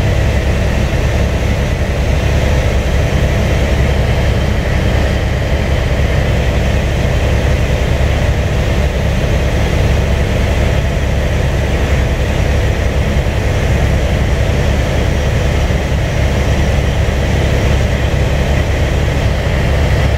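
Helicopter in flight, heard from inside the cabin: the rotor and turbine engine make a loud, steady low drone.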